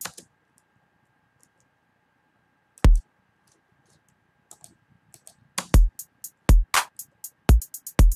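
Programmed electronic drum loop of sampled drums: a deep kick, tight closed hi-hats and a clap. A single kick hits about three seconds in, then the beat runs from about four and a half seconds on, with kicks roughly once a second and hi-hats between. The kick is in a spot the producer calls ugly.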